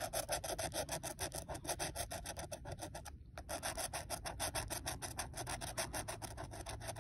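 Scratching the coating off a scratch-off lottery ticket: quick back-and-forth scraping strokes, several a second, with a short pause about three seconds in.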